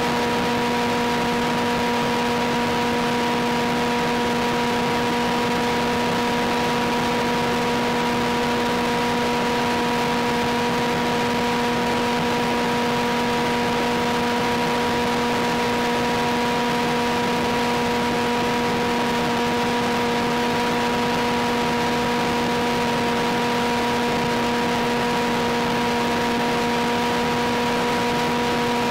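Steady radio-static hiss from an FPV video downlink's audio channel, with a steady whine of several tones held at one pitch over it.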